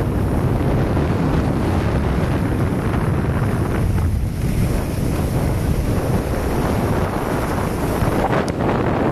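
Loud, steady wind rush buffeting the microphone of a camera carried by a moving skier, heaviest in the low rumble.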